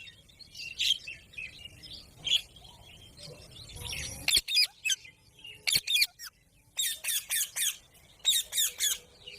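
Green parrot calling: soft chatter at first, then loud, short, high-pitched calls in quick runs of two to five.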